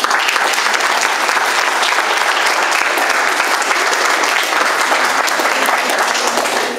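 Audience applauding steadily, the clapping stopping near the end.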